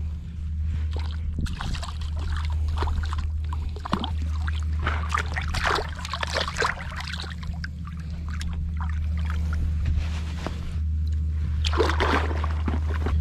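Water splashing and sloshing in irregular bursts as a hooked speckled trout thrashes at the surface and is grabbed by hand, over a steady low wind rumble on the microphone.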